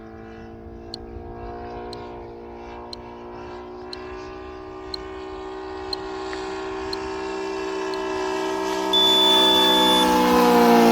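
Saito FG-60R3 three-cylinder radial petrol engine of a large radio-controlled model plane running in flight, growing steadily louder as the plane approaches; at the very end its pitch starts to drop as it passes. Faint ticks come about once a second, and a brief high beep sounds about nine seconds in.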